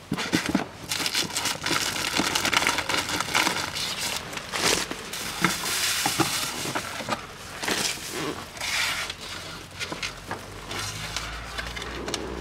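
Papers and plastic wrappers rustling and crinkling as hands rummage through the open glovebox of a 2012 Kia Picanto, with many sharp clicks and knocks from the hard plastic glovebox being handled and lowered. A low steady hum comes in near the end.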